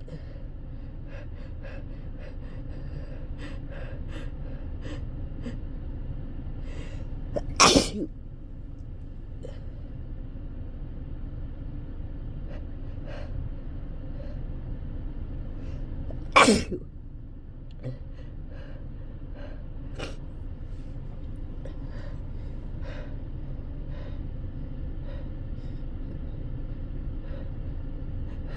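Two loud sneezes from a person, one about eight seconds in and another about sixteen seconds in, each short and sudden, over a steady low background hum.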